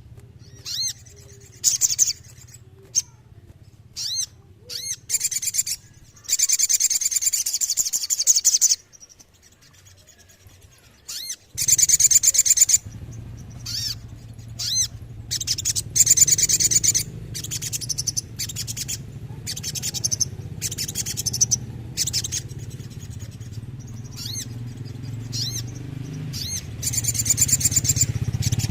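A sogon (sogok ontong, the little spiderhunter) singing: sharp high chirps broken by rapid, rattling trills of one to two and a half seconds, the song trainers call ngerol. A low rumble runs underneath and grows louder about a third of the way in.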